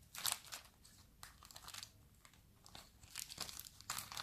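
Thin, dry warqa pastry sheets of a pastilla crinkling and rustling as they are handled and tucked under, in several short bursts.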